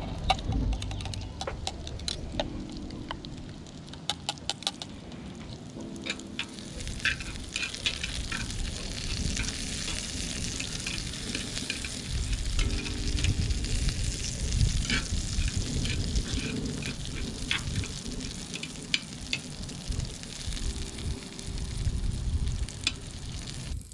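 Metal chopsticks clicking against a cup as eggs are whisked, then breakfast sausage cubes sizzling in a skillet on a flat-top griddle while the chopsticks stir them and tap the pan. The sizzling comes up about six seconds in and runs steadily, with scattered sharp clicks.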